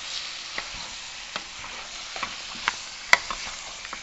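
Mutton pieces sizzling in hot oil in a steel pot as they are stirred with a wooden spoon, the meat searing just after going in. The spoon clacks against the pot now and then, loudest a little after three seconds in.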